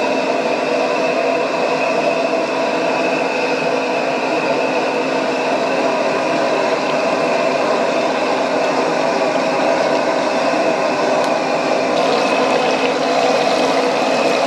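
Shrimp deep-frying in a wok of hot oil, sizzling and bubbling as handfuls are dropped in, over the steady roar of a gas wok burner. The sizzling grows louder and hissier near the end as the oil froths up around the shrimp.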